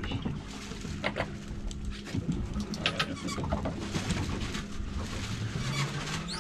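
A steady low motor hum on a sportfishing boat, mixed with wind and water noise, with a few short clicks and knocks.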